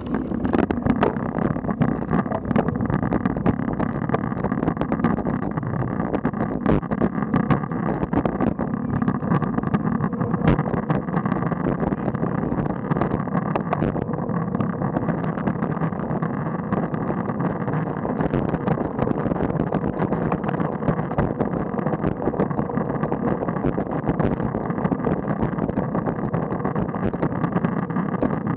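Steady rushing ride noise from a bike-mounted camera on a road bike: wind over the microphone and tyres rolling on tarmac. Scattered sharp clicks fall in the first half.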